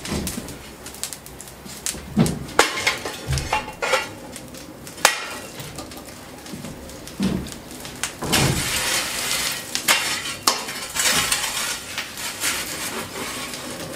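Long-handled steel fire shovel clanking and scraping against the cast-iron furnace mouths and grates of a coal-fired steam boiler, as burning coal is carried from the lit furnace to light the second one. Irregular metallic knocks and clinks, with a longer stretch of scraping a little past halfway.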